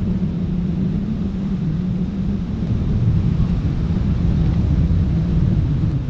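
Wind buffeting the microphone: a steady low rumble, a little louder in the second half.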